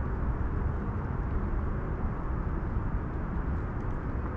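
Steady low rumbling noise, strongest at the bass end and fading in the treble, with no distinct events or rhythm.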